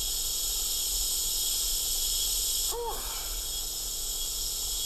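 Steady, high-pitched insect chorus, dense and continuous, with a short rising-then-falling tone about three seconds in.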